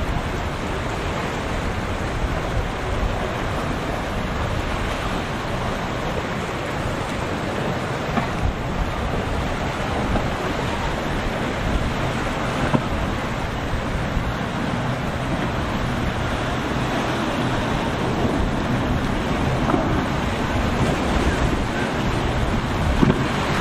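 Steady rush of wind buffeting the microphone over rough, breaking waves.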